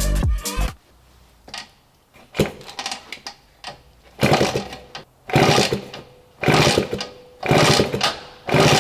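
A 1961 Peugeot S57B scooter's rebuilt 125cc two-stroke engine is turned over on the kickstarter with no ignition, so it does not fire. There are a few light strokes and then about five strong kicks, roughly a second apart, each a short noisy burst as the piston works against compression. The compression sounds pretty good. Background music stops just under a second in.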